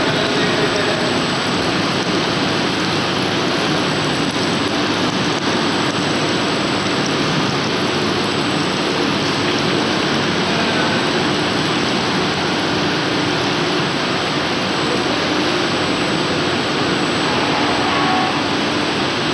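Steady rushing din of a plastic tube extrusion line: water running and spilling from the cooling tank together with the machinery running. It is an even, unbroken noise with no distinct knocks or rhythm.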